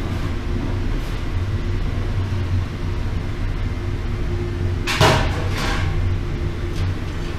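Steady low rumble from the furnace melting the bamboo salt. About five seconds in comes a short, loud metal clatter, twice in quick succession, as the steel pot of molten salt and its hook rod knock against the steel tray.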